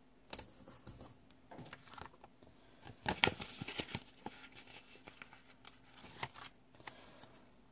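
Paper sticker sheets rustling and crinkling, with light taps and clicks as stickers are peeled and pressed onto planner pages; the rustling is loudest about three seconds in.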